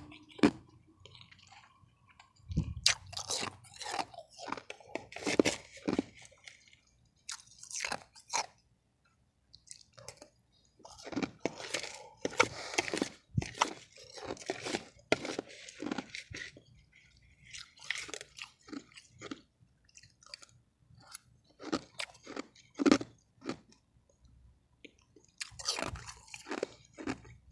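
Mouthfuls of refrozen powdery ice being crunched and chewed, in runs of rapid crunches with short pauses between them.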